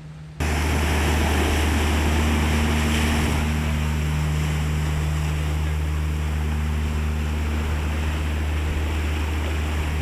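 Sea surf washing in over rocks and sand, with a steady low rumble underneath; it starts abruptly about half a second in.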